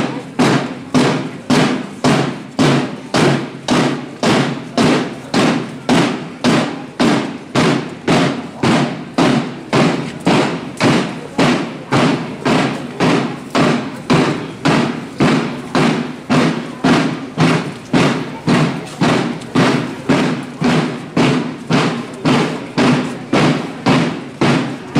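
A drum beaten in a steady, even procession beat, nearly two strokes a second.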